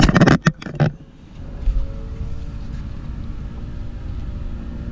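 Boat motor running with a steady low rumble, after a few loud bursts of noise in the first second.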